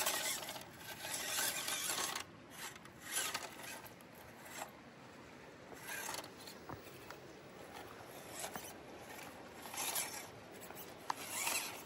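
WPL C24 1/16-scale RC crawler's small brushed motor and gearbox whirring in short bursts of throttle, about six in all, with quieter gaps between them as the truck crawls along.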